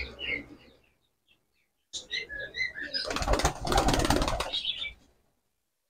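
Pigeon's wings flapping hard as it takes off, a rapid clatter of strokes for about two seconds. Short chirps from small birds come just before it.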